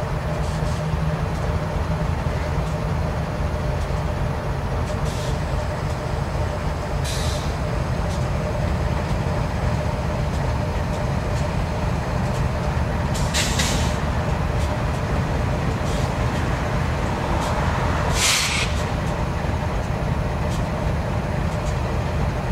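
Idling BNSF GE diesel locomotives (an ES44DC and a C44-9W) give a steady low rumble. Over it come several short hisses of air from the train's air brakes, the loudest about eighteen seconds in.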